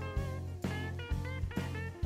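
Instrumental background music with a steady beat, about two beats a second, and a melody that glides in pitch.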